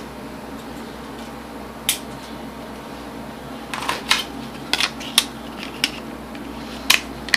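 Small, sharp plastic clicks and taps from handling a smartphone while the battery and SIM card are fitted: one click about two seconds in, then a loose run of them from about four seconds on.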